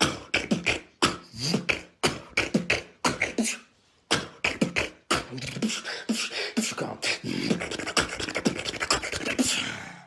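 Human beatboxing: a fast, rhythmic run of sharp percussive mouth sounds, kicks, snares and clicks, with a few brief breaks in the beat.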